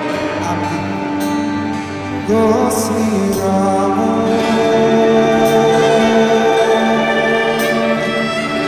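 Live slow song: a man singing long held notes into a microphone over band accompaniment.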